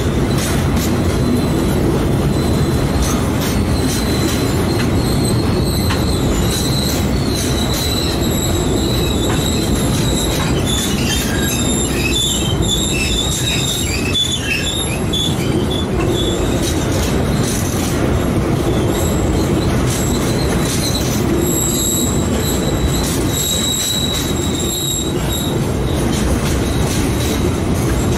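Grain hopper wagons rolling past on the rails: a steady, loud rumble of steel wheels, with a thin, high-pitched wheel squeal that comes and goes, wavering for a few seconds near the middle, and scattered clicks.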